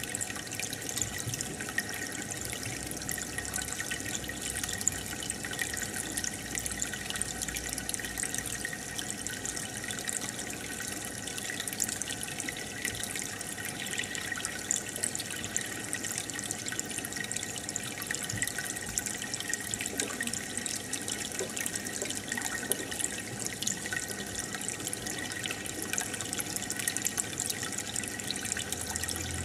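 Aquarium water bubbling and splashing steadily, the fine crackle of air bubbles and filter outflow breaking at the surface.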